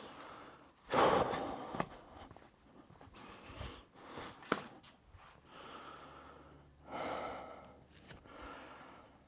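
A man's breathing, with a big breath about a second in and another about seven seconds in, and a few light clicks between.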